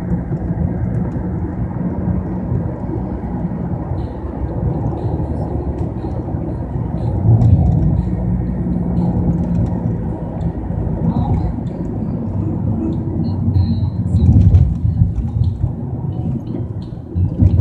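Road noise inside a moving car's cabin: a steady low rumble of tyres and engine, swelling louder briefly about seven seconds in and again about fourteen seconds in.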